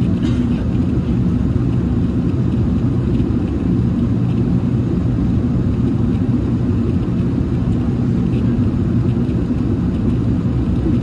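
Steady low rumble of an Airbus A380's Rolls-Royce Trent 900 jet engines and the rush of air, heard inside the passenger cabin in flight.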